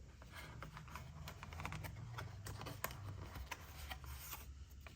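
Handling noise as a fountain pen and its box are handled: light rubbing with many small scattered clicks, over a low steady room hum.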